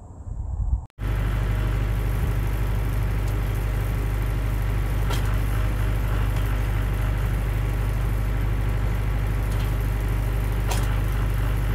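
Mahindra 4540 tractor's diesel engine running steadily at constant speed, driving the 3-point post hole auger through the PTO as the bit bores into the ground. A brief rising sound is cut off abruptly about a second in, just before the steady running begins.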